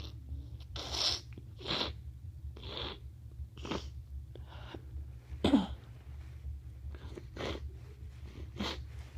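A congested person sniffling repeatedly through a blocked nose: about ten short, sharp sniffs, roughly one a second, the loudest about five and a half seconds in.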